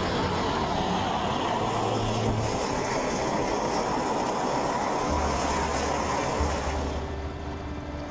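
Steady, loud rotor and engine noise of a Sea King helicopter mixed with wind rushing over the camera, heard from the winch strop beside the open cabin door. The noise eases off slightly near the end.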